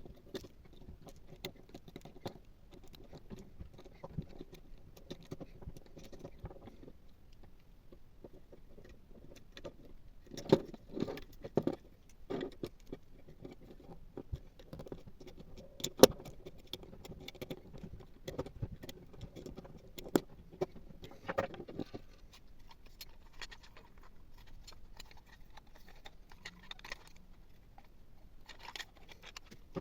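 Small metal parts of a coffee grinder being handled: irregular light clinks and clicks, busiest and loudest about a third of the way in, with one sharp knock around the middle.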